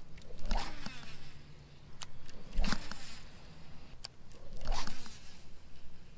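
Fishing reel being cranked in three short spurts about two seconds apart, each a scraping whir, with a few sharp clicks between them as the rod is worked.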